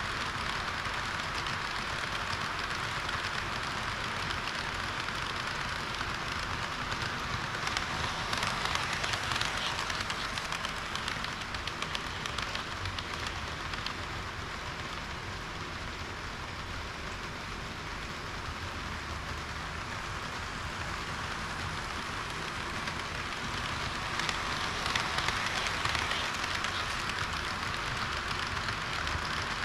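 HO-scale model train running along the layout track: a steady rolling hiss and rattle of wheels on rail, growing louder for a few seconds about a third of the way in and again near the end.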